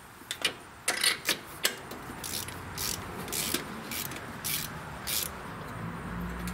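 Socket ratchet being worked in short strokes to unscrew a spark plug, ratcheting about every half second, after a few sharp metal clinks as the socket goes on. A low hum comes in near the end.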